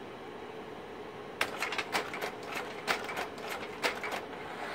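Kodak Carousel 760H slide projector changing slides: a rapid run of mechanical clicks and clacks from the slide-change mechanism and tray, lasting about three seconds and starting about a second and a half in. Under it runs the steady hum of the projector's cooling fan.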